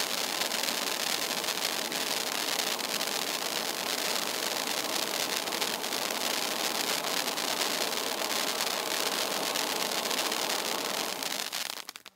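Pyrotechnic ground fountain spraying a stream of silver sparks: a steady hiss with fine crackling. It dies away near the end as the fountain burns out.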